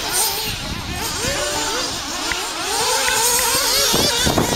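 Several radio-controlled off-road buggies' small nitro engines racing, their high-pitched whines rising and falling as they rev and back off and overlapping one another. A few short knocks come near the end.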